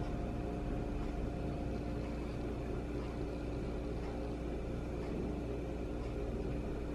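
Steady low hum of room background noise, with a few faint steady tones running through it.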